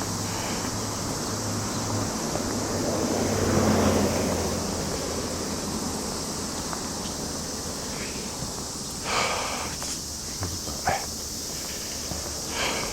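Outdoor ambience with a steady high hiss, swelling louder about three to four seconds in, then three short scuffs near the end.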